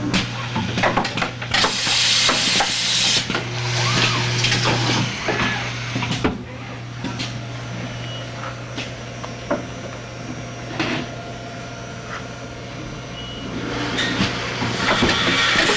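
Automated assembly machine running: a steady hum under scattered clicks and clacks of tooling, with bursts of compressed-air hiss from its pneumatics, twice early on and again near the end.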